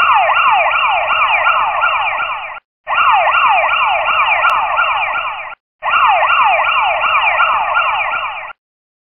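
Electronic siren-style alarm sound effect used as a mock warning: rapid falling wails, about three a second, in three bursts of about two and a half seconds with short gaps between.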